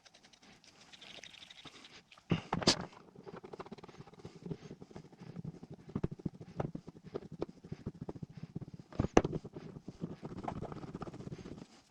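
Metal parts being handled: a rapid rattle of small clicks and knocks, with two louder knocks about two and a half seconds in and again about nine seconds in.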